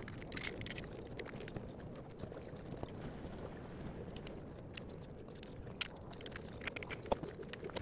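Faint scattered clicks and light taps of the metal frame of a standing desk being handled during assembly, with one sharper tick about seven seconds in.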